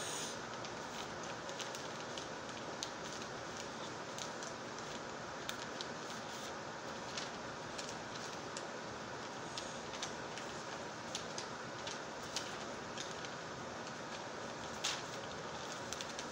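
A sheet of paper being folded and creased into a paper airplane close by: soft crinkles and light scattered taps, one a little louder near the end, over a steady background hiss.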